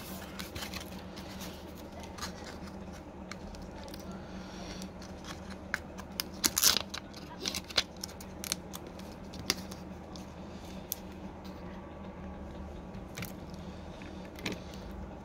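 Plastic protective film and adhesive liner being peeled and handled on a phone back glass: scattered crinkles and small clicks, the loudest a cluster about halfway through, over a steady low hum.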